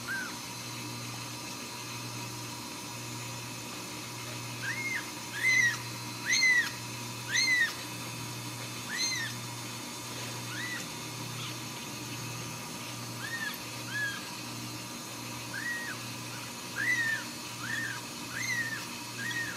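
Very young Ragdoll kitten mewing, about fourteen short, high, rising-then-falling cries in irregular runs, the loudest about five to eight seconds in. The crying sounds as if it were starving, though the owner judges its belly to be full.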